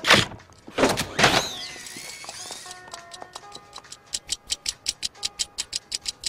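Clockwork mechanism of a cartoon information booth starting up. A couple of short noisy bursts are followed by a few music-box-like notes and a steady mechanical ticking of about three ticks a second, as the booth winds up to play its song.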